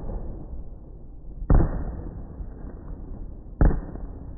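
Fireworks going off in slow motion: two sudden bangs about two seconds apart, each trailing off in a long rumble, with the sound slowed along with the picture.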